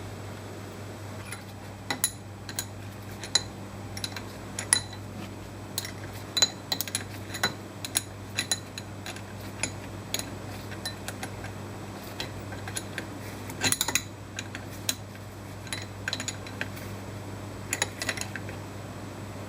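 Irregular metal clinks and taps from tools and steel parts as a fourth-axis rotary table is bolted onto a CNC mill's table, over a steady low hum. A quick cluster of clinks comes a little before two-thirds of the way through, and another near the end.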